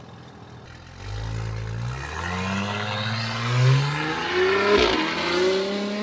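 Turbocharged Audi SQ5 V6, fitted with an Integrated Engineering cat-back exhaust, accelerating hard. About a second in the engine note starts climbing under a rising turbo whine, drops at a gear change with a sharp crack a little past the middle, then climbs again and cuts off at the end.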